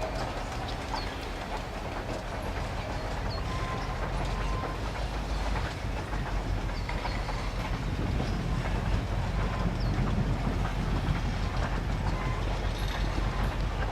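Train running on the rails, a steady rumble that grows louder through the second half.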